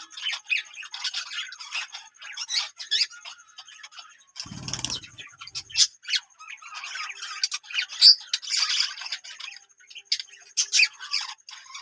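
Australian parrots chirping and squawking, many short overlapping calls. There is a brief low thud about four and a half seconds in.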